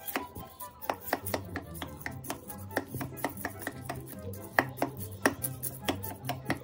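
Metal spoon stirring thick semolina appe batter in a stainless steel bowl, clinking and scraping against the bowl in quick, irregular strokes, several a second.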